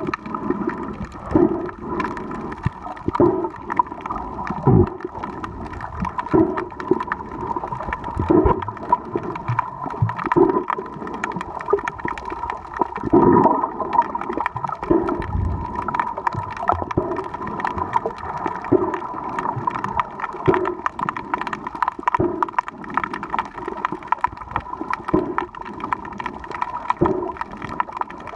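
Underwater sound picked up by a swimmer's camera: muffled water swishing and gurgling in pulses about every two seconds, over a steady high hum.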